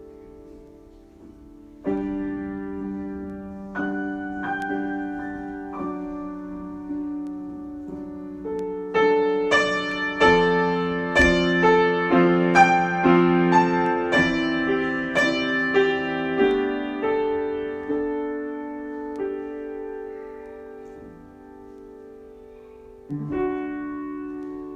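Solo piano improvisation: chords struck and left to ring, building to a louder passage of quicker notes in the middle, then easing back to soft held chords, with one last chord struck near the end.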